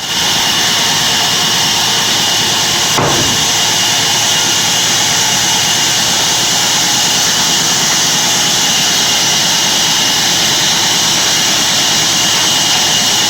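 Sawmill bandsaw machine running with a loud, steady, hissing whir, with one brief change in the sound about three seconds in.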